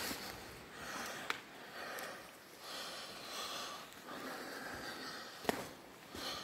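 A person breathing close to the microphone, soft in-and-out breaths coming and going about every second. Two brief sharp clicks, one just over a second in and one about five and a half seconds in.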